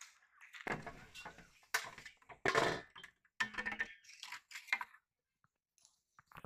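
Close handling noises: a string of irregular crackling, crushing sounds over about four seconds, with a brief one near the end.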